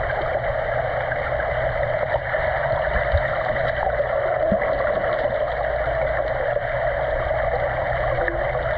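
Steady rushing, gurgling pool water, with no distinct splashes.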